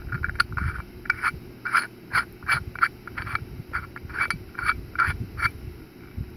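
Zinc metal herb grinder being twisted, its teeth grinding dried chamomile in a quick series of short scrapes, about three a second, that stop near the end.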